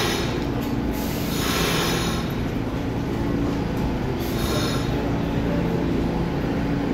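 New York City subway train running through a station: a steady rumble and motor hum, with three short bursts of high hissing wheel-on-rail noise.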